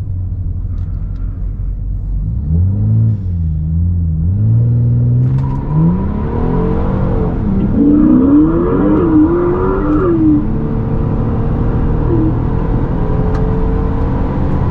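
Ford Explorer Sport's twin-turbo EcoBoost V6 pulling hard under full throttle, heard from inside the cabin: the engine note climbs in pitch through several upshifts, then settles to a steady cruise about ten seconds in.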